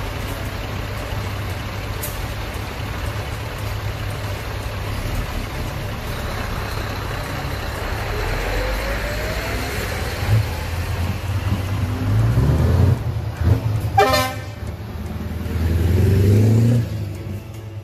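Heavy diesel trucks driving past in a convoy, their engines rumbling steadily and growing louder as a Scania lorry passes close by near the end. A short truck horn blast sounds about fourteen seconds in.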